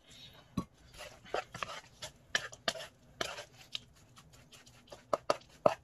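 Metal fork stirring a damp batter of grated carrot, cauliflower rice and flour in a bowl, with irregular clicks and taps as it knocks and scrapes against the bowl. The loudest few taps come close together near the end.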